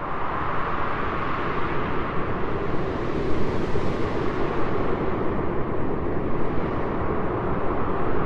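A steady, rapidly fluttering rumble with a broad hiss over it, starting abruptly and running without a break: a flutter sound effect.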